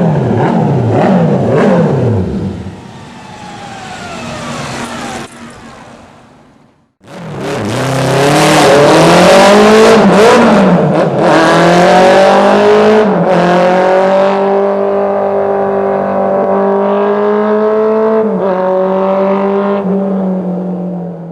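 Honda CB750 Four racer's air-cooled inline-four engine, revved in quick blips with its note then falling away. After a brief break it revs up loudly again, rises and falls a few times, then holds a steady high note for several seconds before cutting off at the end.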